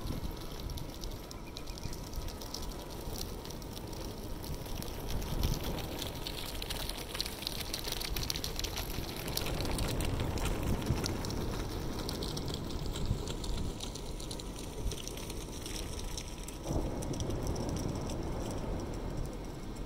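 Ocean surf washing against a rock breakwall, a steady rush that swells about halfway through and again near the end.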